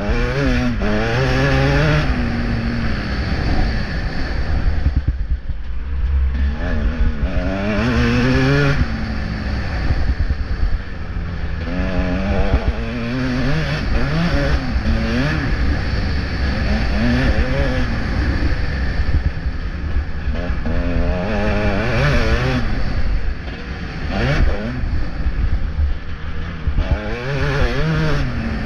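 Motocross bike engine, heard from on board while racing, revving up and dropping back again and again as the rider works through the track, with constant low wind noise on the microphone. It eases off briefly about three-quarters of the way through.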